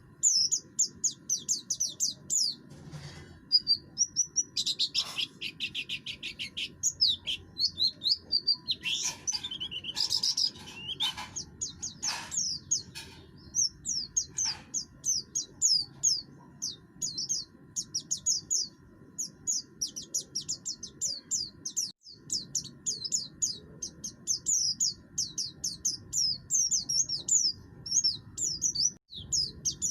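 A buxtoni white-eye (pleci) singing a fast, unbroken song of quick, high, down-slurred notes in a rough, harsh voice. The song turns denser and buzzier for a few seconds about five to eleven seconds in.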